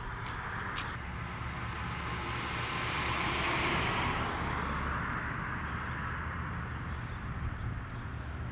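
Outdoor traffic noise: a vehicle passing, swelling to its loudest about halfway through and fading again, over a steady low rumble. It cuts off suddenly at the end.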